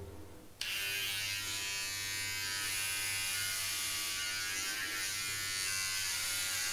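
Electric hair clipper switched on about half a second in, then running with a steady buzz as it is run over the scalp, shaving the head.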